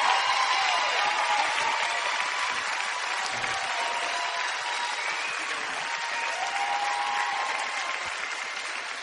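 Large concert audience applauding and cheering, slowly dying down.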